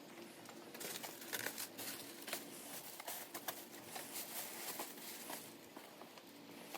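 Plastic packaging wrap crinkling and rustling as it is handled and pulled off, with scattered light clicks.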